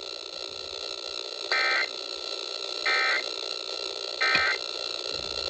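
Three short bursts of Emergency Alert System data tones, the end-of-message code that closes an EAS alert, each lasting a fraction of a second and about a second apart, over a steady background hiss.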